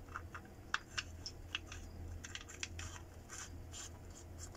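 Faint, irregular light clicks and taps of hand work on small metal parts at the underside of the vehicle, over a steady low hum.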